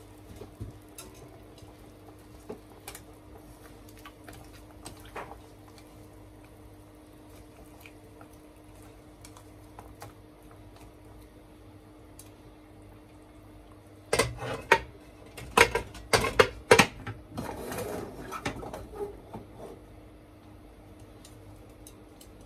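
Kitchen work: a few faint clinks over a low steady hum, then, a good while in, a run of loud knocks and clatters of pots, dishes and utensils lasting several seconds.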